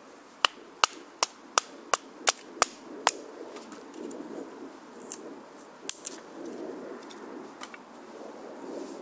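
A short wooden log used as a baton knocking down on the top of an upright stick about eight times, roughly three blows a second, splitting the stick. About six seconds in comes one more sharp knock, then a few faint clicks.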